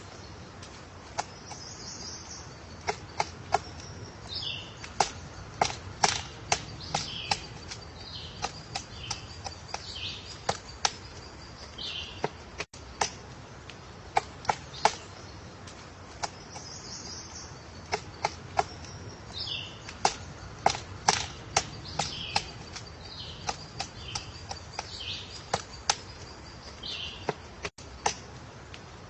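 Woodpecker chiselling a nest hole in wood: sharp, irregular taps, often several in quick succession, with high-pitched bird calls between them.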